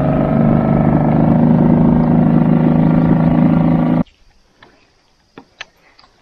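Small outboard motor on an inflatable boat running steadily, cutting off abruptly about four seconds in. A few faint clicks follow.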